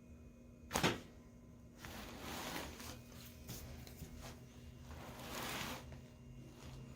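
A single sharp crack about a second in, from a chiropractic spinal adjustment, followed by two longer, softer noises.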